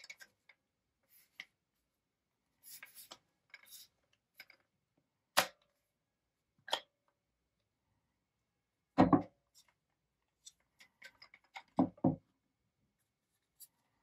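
Handling noise from an electric coffee grinder being taken apart: scattered light clicks and scrapes of its housing parts, with a louder knock about nine seconds in and a quick double knock near twelve seconds.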